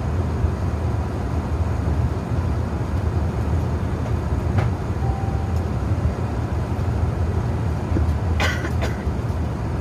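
Steady low rumble and rush of an airliner cabin in flight: engine and airflow noise heard from a passenger seat as the plane climbs out shortly after takeoff. A brief clatter of clicks about eight and a half seconds in.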